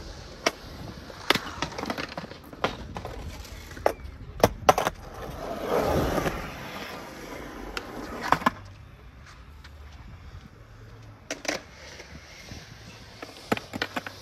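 Skateboard on concrete: repeated sharp clacks of the wooden deck and trucks striking the ground and ledge, with wheels rolling between them. Near the middle, a longer rushing noise of the board swells and fades.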